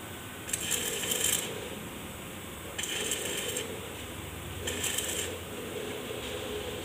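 Stick (arc) welding on a broken wheel stud in a truck hub: three short crackling arcs, each under a second, as weld is built up on the stud stub so that it can be backed out.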